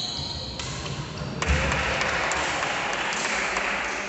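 Shoes squeaking on a wooden badminton court, then a sharp hit about a second and a half in, followed by spectators clapping for about two and a half seconds as the rally ends.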